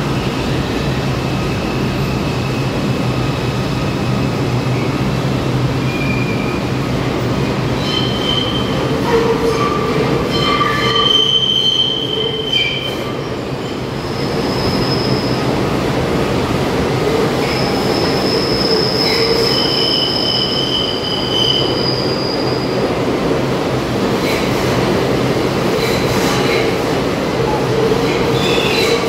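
R62A subway train running into an underground station: a steady rumble of steel wheels on the rails, with high-pitched wheel squeals that come and go through the middle.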